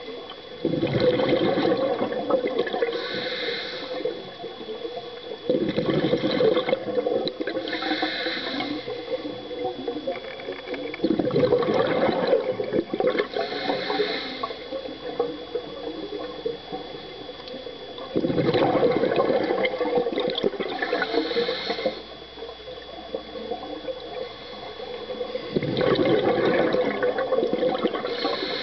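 Scuba diver breathing through a regulator underwater: five loud gushes of exhaled bubbles, one every five to seven seconds, each followed a few seconds later by a short, higher hiss as the diver inhales.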